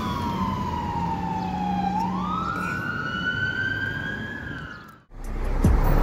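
Police car siren in wail mode: a slow falling sweep, then a slow rise back up, fading and cutting off about five seconds in.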